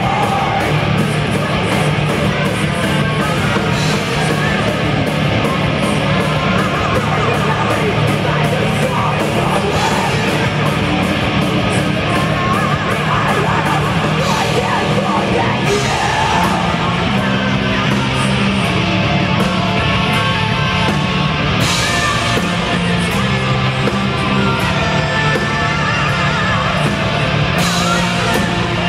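Live heavy metal band playing: distorted electric guitar, bass and drums, with cymbal crashes every few seconds and a woman singing and shouting.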